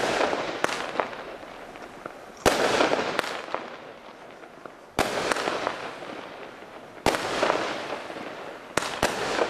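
Total Pyro X Factor firework cake (barrage) firing single shots about every two to two and a half seconds, with two in quick succession near the end. Each shot is a sharp bang followed by a fizzing crackle that dies away.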